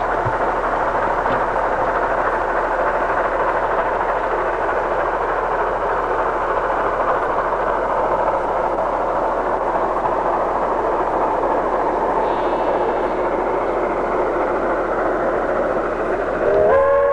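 A steady rushing noise, then, about half a second before the end, the whistle of New Zealand J-class steam locomotive J1211 opens with a short upward slide and settles into a chord of several notes.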